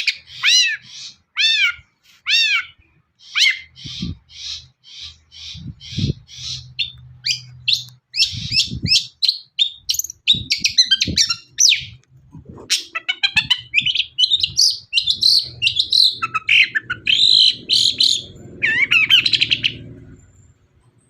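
Long-tailed shrike (cendet) singing a fast, varied song of short chirps and repeated notes, with a run of downward-sweeping whistles in the first few seconds. The song stops about a second before the end.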